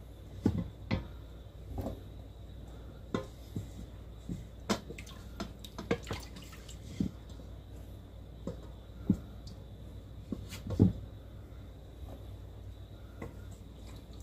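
Buttermilk dripping and splashing into a stainless steel bowl as fresh butter is squeezed by hand in cheesecloth: a dozen or so scattered wet drips and plops, the loudest about eleven seconds in, over a faint low hum.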